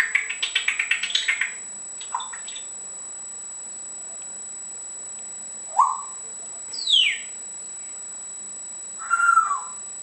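African grey parrot whistling and chirping: a quick run of about ten clicky chirps at the start, then a short rising whistle, a falling whistle, and a brief warbling call near the end.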